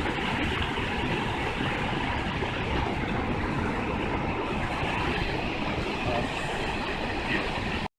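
Steady rushing of a mountain stream, an even noise with no pitch, cutting off suddenly near the end.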